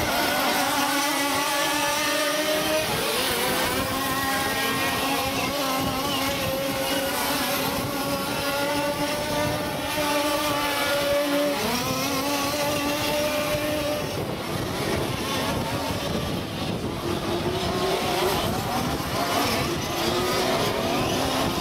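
Several large-scale petrol RC off-road buggies racing, their small two-stroke engines buzzing at high revs. The pitch climbs slowly, drops sharply about halfway through and climbs again, and later several engines overlap at different pitches.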